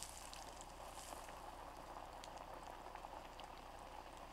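Chicken deep-frying in hot oil in a cast-iron Dutch oven, a steady faint sizzle with small scattered pops.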